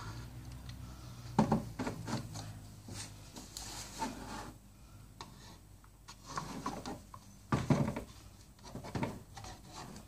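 Irregular rubbing, scraping and knocking from a plastic motor-oil bottle being handled at the engine while the engine is filled with oil, with louder knocks about a second and a half in and near eight seconds.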